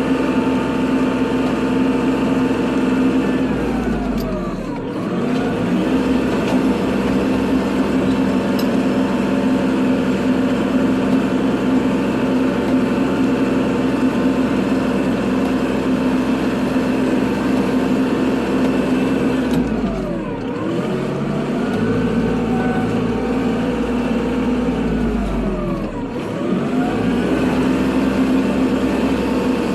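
Kubota tractor's diesel engine running steadily at high revs while plowing snow. Its engine speed briefly dips and climbs back about four seconds in, and twice more in the last ten seconds.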